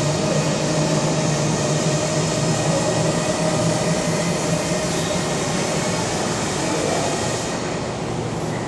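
Steady machine hum with an even rushing noise, typical of a gym's air-conditioning running.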